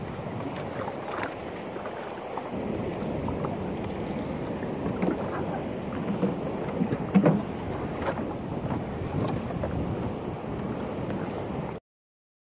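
Wind buffeting the microphone over choppy water lapping at a small open boat, with a few sharp knocks in the middle, the loudest about seven seconds in. The sound cuts off abruptly near the end.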